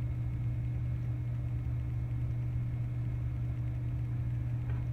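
A steady low hum with no voice, even in level throughout.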